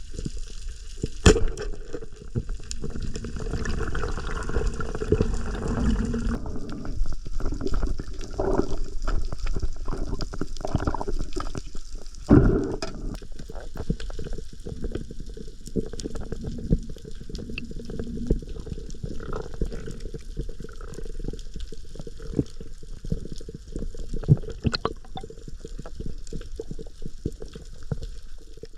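Water sloshing and gurgling, with many small clicks throughout and two stronger knocks, about a second in and again around twelve seconds in.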